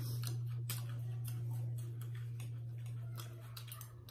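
Eating sounds: irregular small clicks and taps of forks on plates and chewing, over a steady low hum.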